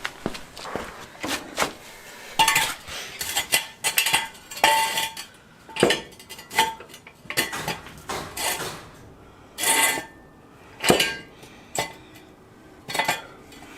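Steel car-lifting gear being worked: a floor jack and jack stands giving a string of irregular metal clanks and clinks, some ringing briefly.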